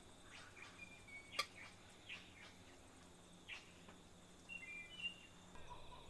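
Faint birdsong: scattered short chirps and a few brief whistled notes, with one sharp click about a second and a half in.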